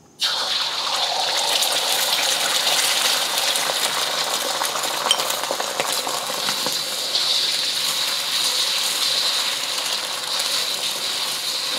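Beaten eggs hitting a smoking-hot, oiled wok and sizzling. The sizzle starts suddenly as the eggs go in and then runs steadily.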